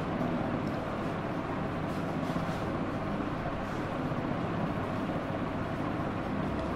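Steady background rumble and hiss with no speech, with a few faint scratches of a marker writing on a whiteboard.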